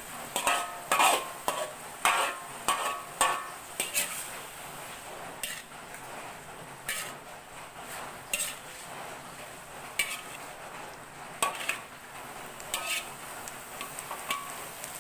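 Metal spatula scraping and clanking against an aluminium wok while stir-frying shredded bamboo shoots and leaves. Quick strokes come close together for the first few seconds, then the strokes grow sparser.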